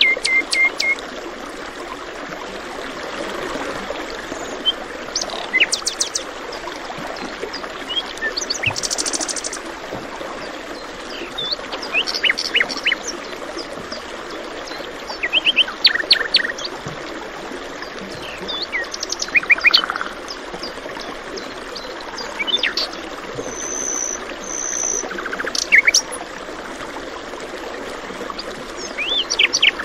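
Songbirds calling in short bursts of rapid chirps and trills every few seconds over the steady rush of running stream water.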